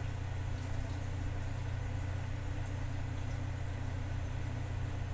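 Steady low machine-like hum with a hiss over it.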